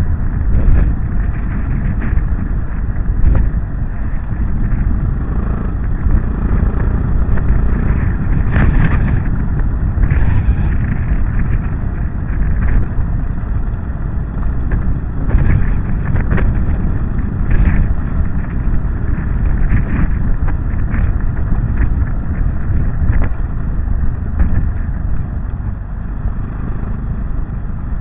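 Yamaha XT660Z Ténéré motorcycle riding along a gravel track, a steady rumble of engine, tyres and wind buffeting the bike-mounted camera's microphone. A few short knocks from bumps or stones are scattered through it.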